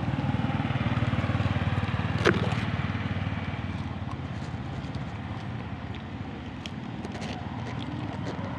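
A steady low rumble like a small engine running. A short rising squeak comes about two seconds in.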